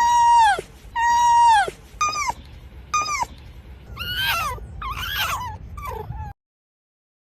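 Fox calling: two long high-pitched cries, each a held note that drops away at the end, then two shorter cries and a few wavering yelps. The sound cuts off suddenly about six seconds in.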